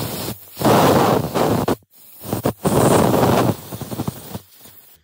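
Aerosol spray can hissing through its straw into a plastic carburettor jet assembly, in two long bursts of about a second each with shorter, fainter spurts around them, flushing out the jet passages.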